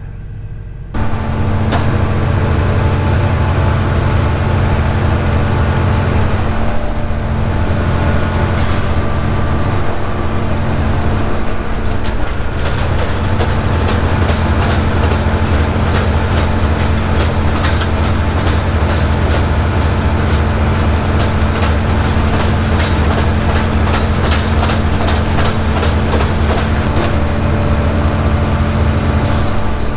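Cotton picker's diesel engine running steadily under load, a deep hum with a steady tone over it, starting abruptly about a second in. From a little under halfway through, a fast, dense rattle runs on top of it.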